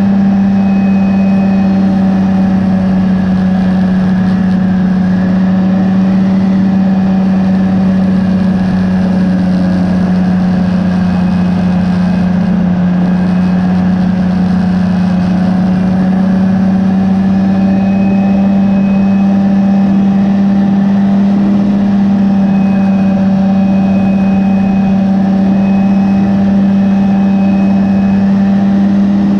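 Rotax 503 DCDI two-cylinder two-stroke engine of a Phantom X1 ultralight running steadily in flight. It holds an even drone, dips slightly in pitch about halfway through, then recovers.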